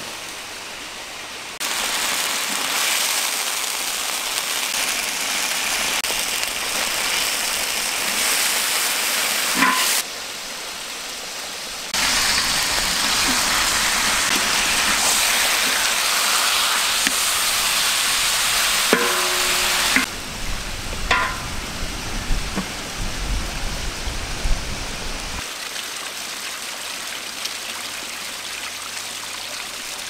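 Pork frying in a wok, a steady dense sizzle as the pieces are stirred with a wooden spatula. The sizzle drops away and comes back abruptly several times, with a few sharp clicks and knocks in the latter part.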